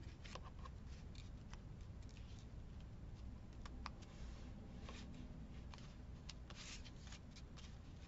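Faint rustling of paper and card pieces being handled and shuffled, with scattered light taps and clicks.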